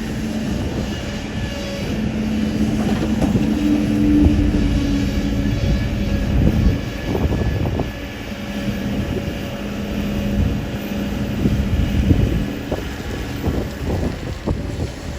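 Diesel engine of a Kobelco hydraulic excavator running under load, its pitch shifting as it works, with scattered knocks.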